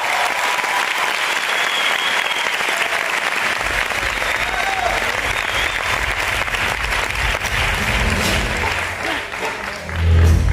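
Audience applauding with a few high cheers and whoops. Low music comes in about a third of the way through, and a loud bass hit near the end starts the music for the next dance.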